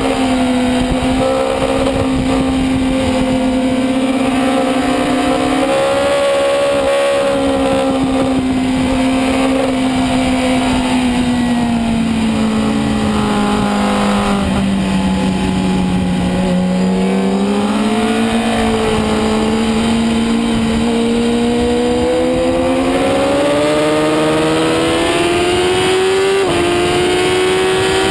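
Onboard sound of a superbike's engine running hard on track: a loud, steady engine note that sinks slowly through a long corner and climbs again as the bike accelerates, with a shift in the note near the end.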